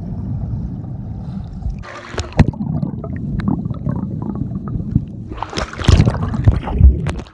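Phone microphone underwater in a swimming pool: a muffled rumble of bubbles and churning water. About five and a half seconds in, it changes to loud splashing as the phone breaks the surface.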